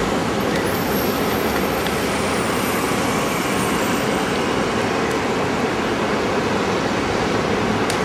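Steady road traffic noise: an even, unbroken rush of passing vehicles.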